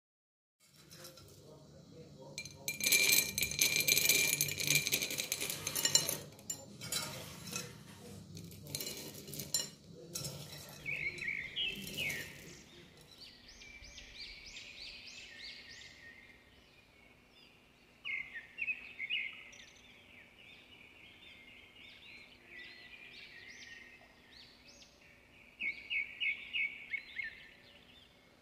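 A metal spoon clinking and scraping in a bowl of fried chana dal, loudest in the first few seconds. After about twelve seconds, birds chirp in short repeated phrases, with a quick run of chirps near the end.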